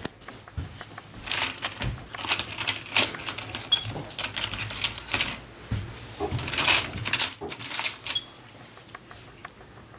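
Irregular rustling and clicking from close handling, coming in short clusters, with a short high beep twice.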